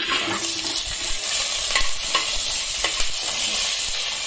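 Whole spices, coriander seeds and peppercorns among them, sizzling as they fry in hot oil in a stainless steel pressure cooker, with a steady hiss. A steel spoon stirs them, scraping and clicking against the pan several times.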